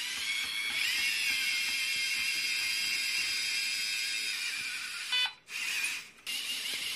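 LEGO electric motors whining as a LEGO robotic arm moves, the pitch gliding up and down as they speed up and slow down. A short beep comes about five seconds in, and the sound cuts out briefly twice near the end.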